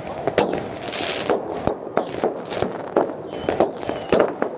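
Fireworks going off: an irregular rapid series of sharp bangs and pops, several a second, over a steady background rumble.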